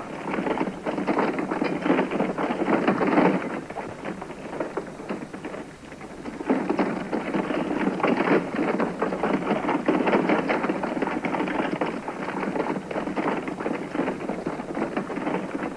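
A two-horse covered wagon rolling away over a dirt yard: a dense clatter of hooves clopping and wooden wheels rattling, easing briefly about six seconds in before picking up again.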